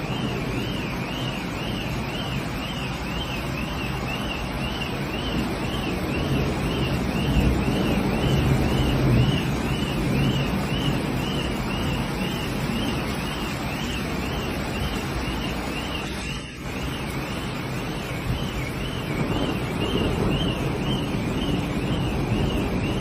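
An alarm siren warbling steadily up and down, about three times every two seconds, over loud rushing wind noise.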